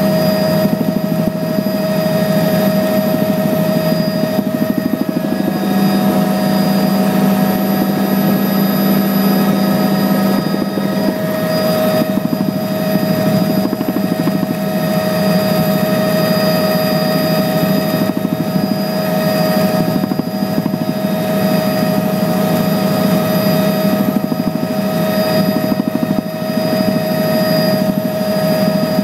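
Helicopter engine and rotor noise heard from inside the cabin, running steadily at cruise: a low drone with a constant whine above it.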